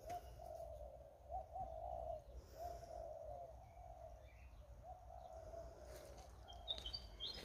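Dove cooing in a run of low, wavering notes, with a few short high bird chirps near the end and a faint low rumble beneath.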